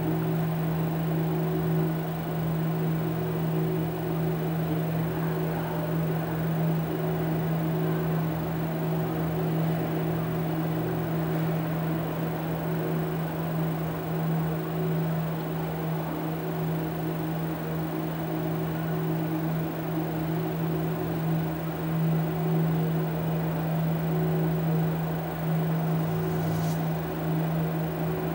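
Steady electronic drone: a low hum with a fainter higher tone above it and a haze of noise. One brief tick sounds near the end.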